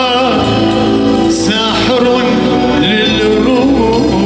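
Male singer singing an ornamented Arabic vocal line into a microphone, with wavering held notes and pitch slides, over steady sustained instrumental accompaniment.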